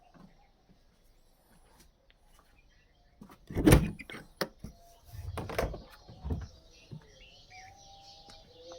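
A loud thump about three and a half seconds in, followed by several knocks and clatters over the next few seconds; faint bird chirps near the end.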